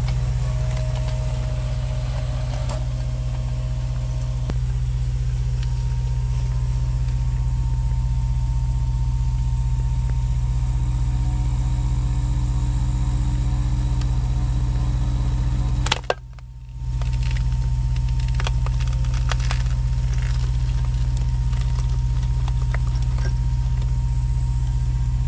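Engine of rock-splitting equipment running with a steady low drone. It breaks off briefly after a sharp click about two-thirds of the way through, then resumes with scattered light clicks over it.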